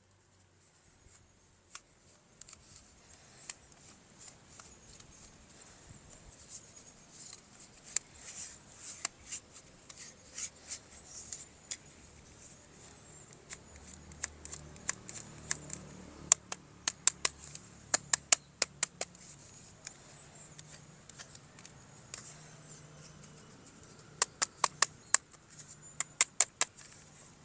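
Hands opening and handling toy packaging at close range: scraping and rustling, with quick runs of sharp plastic clicks partway through and near the end.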